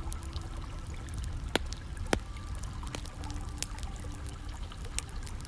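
Wood fire crackling, scattered sharp pops with two louder ones about one and a half and two seconds in, over a steady flow of pouring, trickling water.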